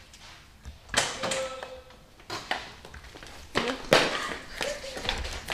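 A series of sharp taps and knocks, with short bits of voice between them.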